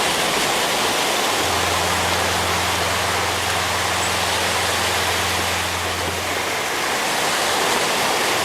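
Steady rushing noise of sea surf, with a low steady hum that comes in about a second and a half in and fades out about six seconds in.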